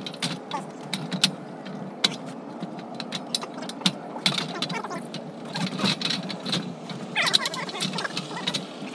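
Steel scaffold frame being handled, its parts giving irregular sharp metal clicks, knocks and rattles, with a short squeak of metal on metal near the end.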